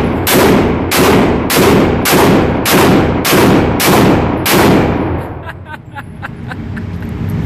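AR pistol firing a steady string of semi-automatic shots, about eight in all, roughly two a second, each with a short echo. The shots stop about four and a half seconds in, followed by a few faint clicks.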